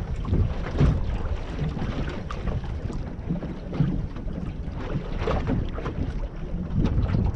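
Wind buffeting the microphone, with water slopping against a small boat's hull on open sea: a gusty, uneven rumble.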